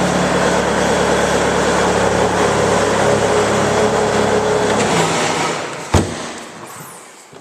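Bobcat S220 skid steer's 75 hp diesel engine running steadily, then shut off about five seconds in and running down to quiet. A single sharp click comes about a second later.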